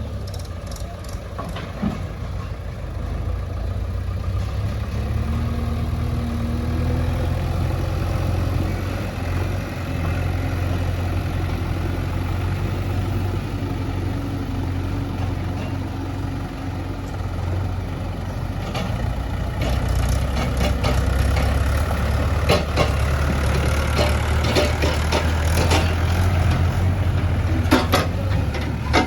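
Heavy diesel engine of farm machinery running steadily. From about two-thirds of the way through, the engine note grows stronger and is joined by repeated sharp knocks and clanks.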